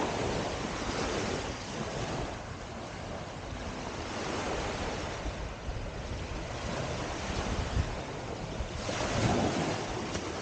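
Small waves washing up on a sandy beach, rising and falling, with wind buffeting the microphone. One wash swells louder about nine seconds in.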